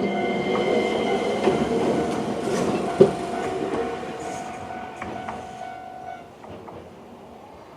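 20100-series electric train passing over the level crossing and pulling away, its rumble fading, with one sharp wheel click over a rail joint about three seconds in. The crossing's warning alarm rings alongside and stops about six seconds in, once the train has cleared.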